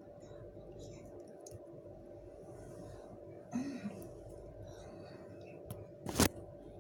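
Small handling and tidying noises over a steady electrical hum, with a brief murmured voice about halfway through and one sharp knock near the end.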